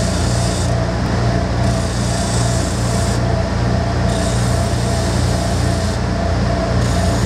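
Grizzly G1071 oscillating spindle sander running with its dust collection drawing air: a steady motor hum under a hiss that swells and drops about every two and a half seconds.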